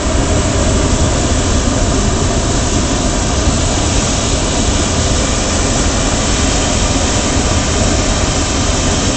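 Hot air balloon's propane burner firing in one long blast: a loud, steady roar.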